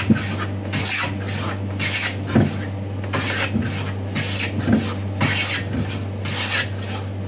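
Metal hand plane shaving the edge of a board held in a wooden vise, a quick run of short rasping strokes, roughly two a second.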